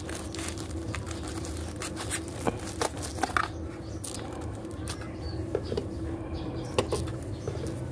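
Scattered light clicks and taps of a 3D-printed plastic pot mould being handled, over a steady low hum.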